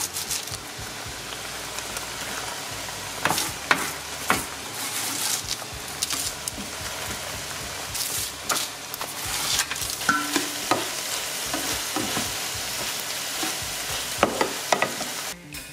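Orange sauce sizzling in a non-stick frying pan as crispy tofu cubes are added and stirred through it with a spatula. A steady sizzle runs under repeated sharp knocks and scrapes of the spatula against the pan and baking tray.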